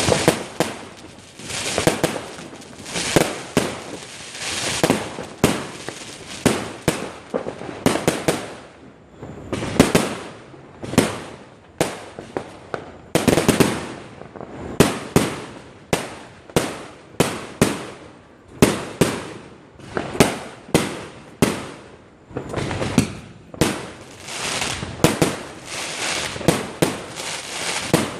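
New Year fireworks going off in quick succession: a steady run of sharp bangs, about one or two a second, with crackling between them and a brief lull about nine seconds in.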